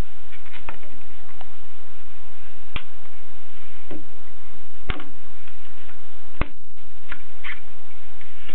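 Groma Gromina manual typewriter typing: irregular, unevenly spaced key strikes clicking sharply, about nine in all, over a steady hiss.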